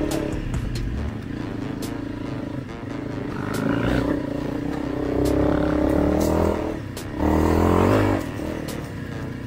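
Honda CRF300L Rally's single-cylinder four-stroke engine running under changing throttle as the bike is ridden along a dirt trail, its pitch rising and falling. It revs up harder about three-quarters of the way through. Scattered sharp clicks sound throughout.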